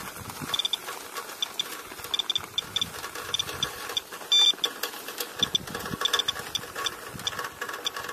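Radiation dosimeter clicking out detected particles as irregular short, high beeps, some in quick runs, with one longer, louder beep about four and a half seconds in. The rapid count means elevated radiation in rainwater from a downspout: the display reads about 1.72 microsieverts per hour and flags the level as well above background.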